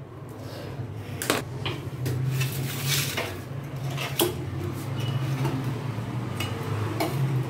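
A kitchen knife and metal plates clinking and scraping as steamed buns are lifted from a perforated steel steamer plate onto a brass plate, with a few sharp knocks spread through, over a steady low hum.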